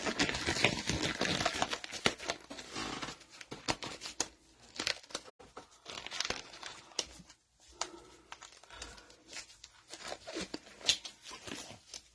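A glove being worked onto a hand with difficulty: dense rustling and crinkling for the first few seconds, then scattered rustles and small snaps as it is tugged and adjusted.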